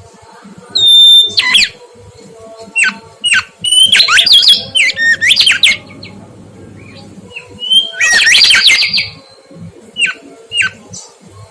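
Mangrove whistler singing: loud whistled notes that sweep steeply down in pitch, some single and some run together in quick, dense clusters about four and eight seconds in.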